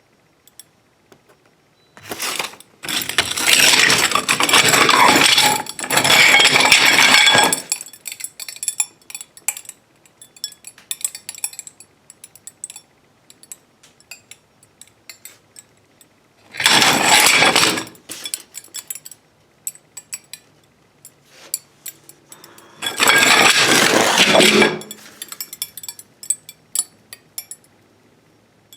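A 9 by 3 inch glass-look tile, made with built-in cracks under its surface, crackling and ticking as it is moved or pressed. The crackling comes in three long runs of dense tiny clicks, with scattered single ticks between them. It is the sound of the stressed tile body giving under pressure.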